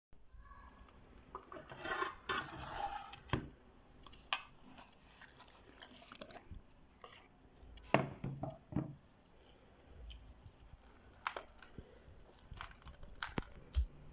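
Kitchen handling sounds from preparing food: a stretch of rustling and rubbing about two seconds in, then scattered clicks and knocks, the sharpest about eight seconds in.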